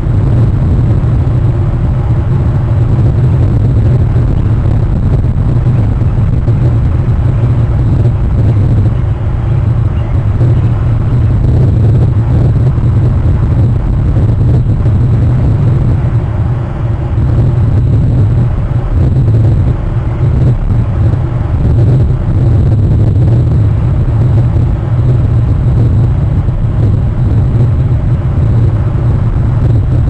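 Steady, loud low rumbling noise with a fainter hiss above it, unbroken throughout, with no distinct calls.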